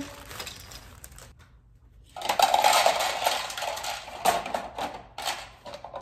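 Small hard fidget toys clattering and rattling together as they are handled and dropped into a storage bin, starting about two seconds in after a quiet opening, with many sharp clicks through it.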